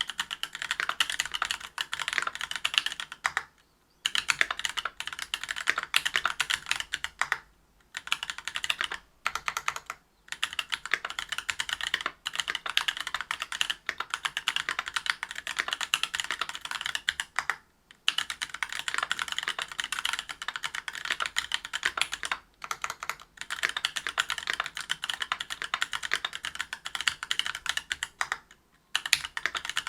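Continuous fast typing on a Whale 75 mechanical keyboard with stock, unlubricated Gateron Silver Snow 65 g tactile switches in a brass plate and GMK keycaps. It is a dense run of keystroke clacks broken by short pauses every few seconds.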